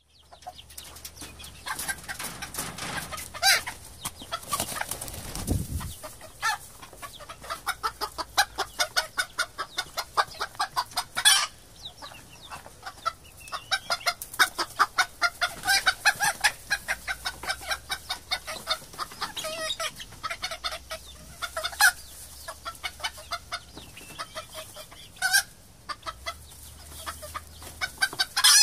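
A flock of hens clucking: a dense, continuous run of quick clucks, with a few louder single calls standing out.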